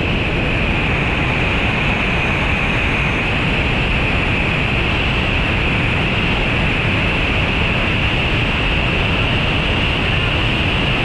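Whitewater pouring over a waterfall close to the microphone: a loud, steady rush of water with no let-up.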